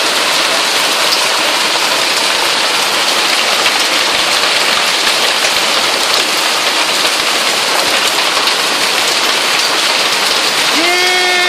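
A heavy hail storm: a dense, steady roar of countless hailstones striking the ground and the house, heard through an open door.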